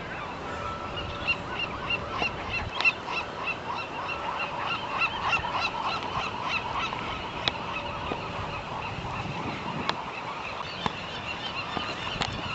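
A colony of gulls calling, many short yelping calls overlapping continuously.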